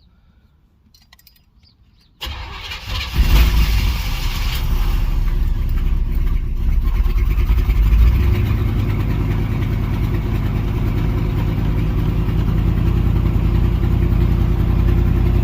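A 305 H.O. small-block Chevy V8 is cranked about two seconds in. It catches about a second later and keeps running with the throttle held open. It is a cold engine that starts hard and stalls unless the gas pedal is held down.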